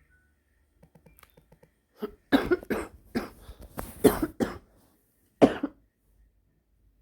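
Woman coughing in a fit: a quick string of harsh coughs lasting about three seconds, then a single cough a moment later.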